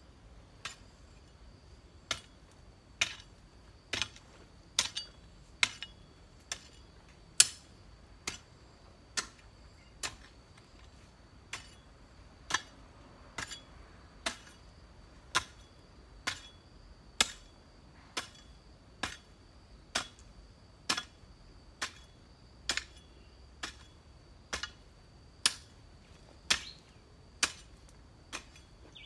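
A long-handled garden hoe chopping into dry soil, one sharp strike a little under a second apart in a steady working rhythm.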